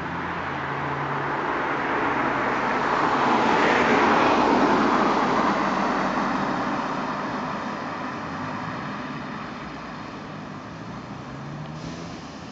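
A vehicle passing by: its running noise swells to a peak about four to five seconds in, then slowly fades away.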